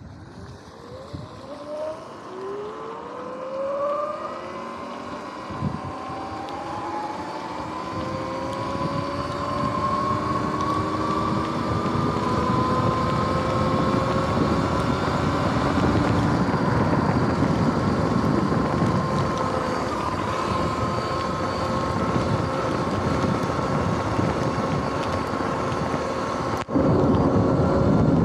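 Electric bike motor whining, several tones rising in pitch as it accelerates and then holding steady at cruising speed, over wind and tyre hiss on wet pavement. The sound steps suddenly louder near the end.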